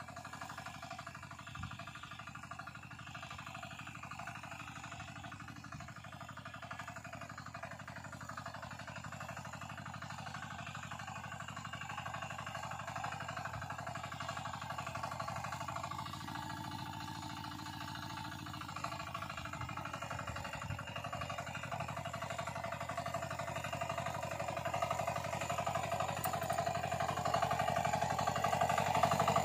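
Walk-behind power weeder's small engine running steadily under load while its iron cage wheels and tines work the soil between crop rows. It grows louder as the machine comes closer, most of all near the end.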